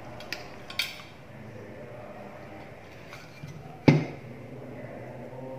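Hand tools clicking against the flat iron's parts while its blown thermal fuse is removed: a few light clicks, then one sharp click about four seconds in.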